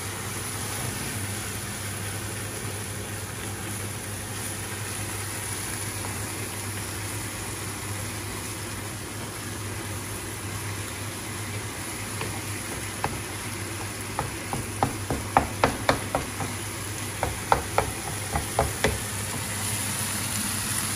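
Lamb mince sizzling steadily in a pan as it browns in its own juices without added water. In the second half it is stirred, and a utensil knocks against the pan in a run of sharp clacks.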